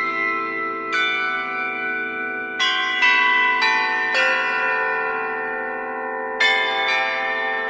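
Bronze church bells ringing: higher bells struck in small clusters of strokes, about a second in, three or four times between three and four seconds in, and twice again near the end, over the steady hum of larger bells still sounding.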